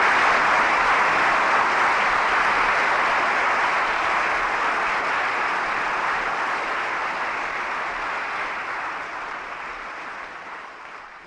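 Audience applauding: a dense, even clapping that gradually fades away.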